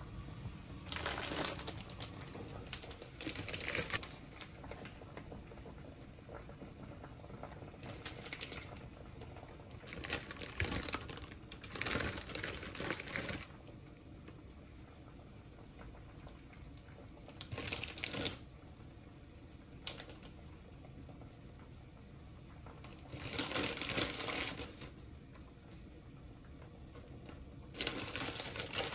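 Plastic food packet crinkling in repeated bursts of a second or two as it is handled and fish cakes are pulled out of it.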